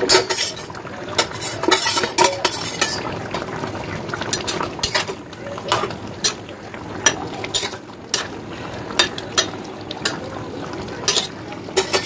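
A metal spatula stirs a thick fish curry in a metal pan, scraping and clinking against the pan in repeated, irregular strokes.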